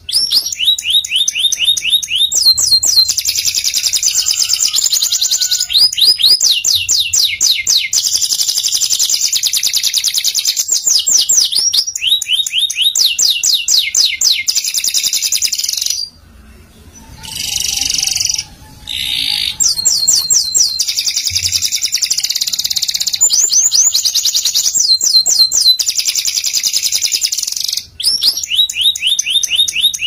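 Domestic canary singing a continuous song of fast trills and sweeping rolls, high-pitched, with a brief pause a little over halfway through.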